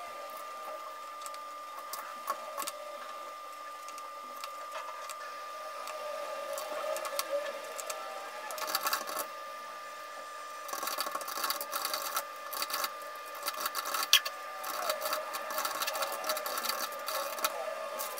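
Clicking of computer-keyboard typing and handling of paper at a desk, the clicks coming thickest in the second half, over a steady hum.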